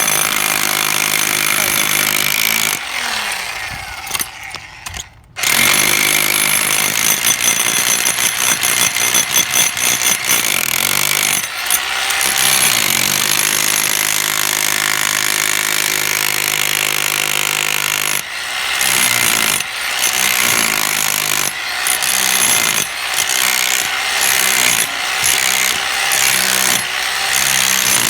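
Electric demolition hammer breaking through a concrete slab: a loud, steady hammering with a motor hum. It drops away briefly about four seconds in, then comes back with a fast, uneven chatter and short breaks every second or two.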